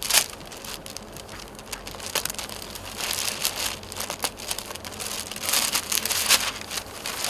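Rustling and crinkling of suit cloth being handled and unfolded, with many short crackles and two louder stretches of rustling, the first about three seconds in and the second near six seconds.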